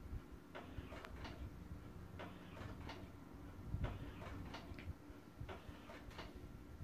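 Motorised baby swing ticking and clicking faintly as it rocks, the clicks coming in small groups about every second and a half in time with the swing's motion.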